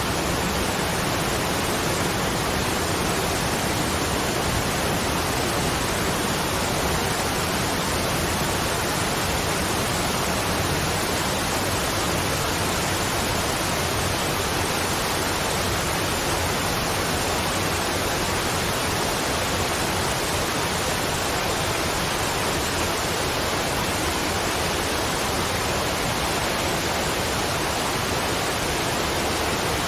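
Waterfall: a steady, unbroken rush of falling water at an even level.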